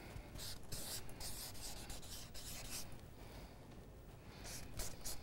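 Marker pen writing on a paper flip chart: a series of short, faint scratchy strokes.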